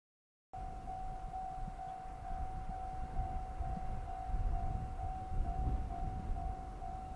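Japanese railway level-crossing warning bell ringing steadily, a single repeated tone about twice a second, warning of an approaching train. A low rumble sits underneath.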